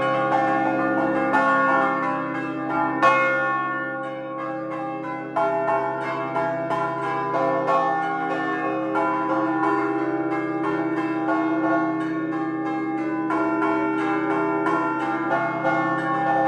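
A ring of five swinging church bells tuned in C, rung by hand in the Emilian 'a slancio' style. Strikes come in quick, overlapping succession over a steady hum of the bells' long-lasting tones.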